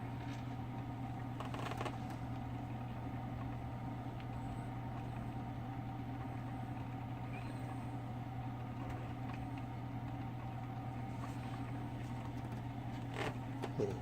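Single-serve coffee maker running with a steady low hum while it heats and brews, before any coffee has come out, with a couple of faint clicks.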